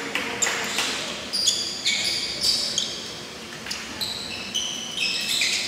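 Basketball game on a gym court: sneakers squeaking in many short high-pitched chirps, mixed with the thuds of the ball bouncing.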